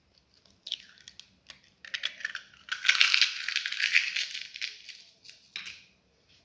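A hen's eggshell being cracked and pulled apart by hand: a few sharp clicks, then about three seconds of dense crackling, and a last click or two near the end.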